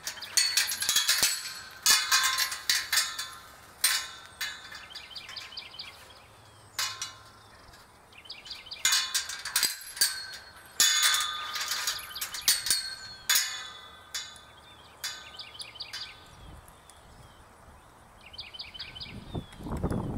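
Steel-pipe round-pen gate clanking and rattling in irregular clusters of sharp metallic knocks.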